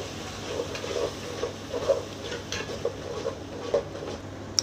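A perforated metal ladle stirring and scraping a thick spiced onion-tomato masala around an aluminium pot, with uneven knocks of the ladle against the pot over a steady sizzle of the paste frying in oil.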